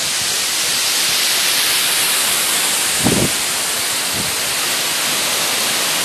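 Waterfall pouring down a rock face: a loud, steady rushing of water, with a person's voice heard briefly about three seconds in.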